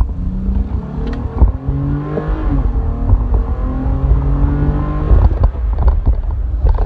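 3.6-litre Pentastar V6 with a cold air intake under hard acceleration, heard inside the truck's cab with the windows up. The engine note climbs in pitch, drops briefly about two and a half seconds in as the transmission upshifts, then pulls again until it eases off near the end.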